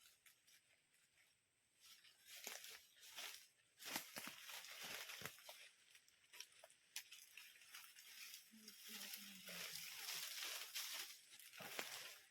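Rambutan fruit being handled by hand among leaves and twigs: irregular crackling, rustling and tearing sounds in short bursts.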